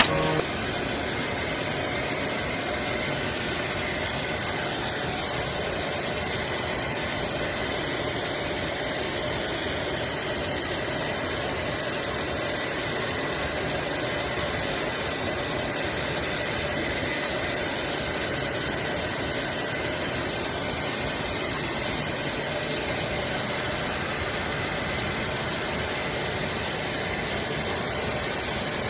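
A machine running steadily: an even rushing noise with several fixed high whines, unchanging throughout.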